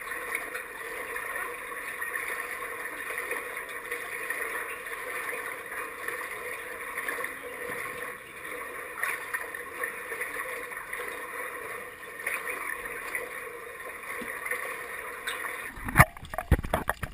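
Pool water lapping and sloshing against a camera floating at the waterline, a steady wash of noise. About a second before the end comes a run of sharp knocks as a plastic kayak hull bumps against the camera.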